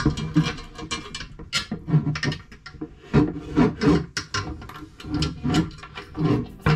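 Metal bed-lift bracket hardware clicking and rattling against a wooden bed-base panel as the bracket is fitted by hand: a run of irregular, closely spaced clicks and knocks.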